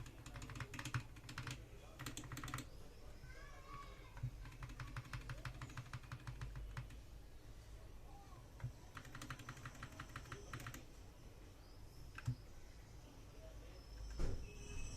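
Fast typing on an SK66S 60% optical-switch keyboard: rapid key clicks in about four bursts, with short pauses between them and the longest run in the middle.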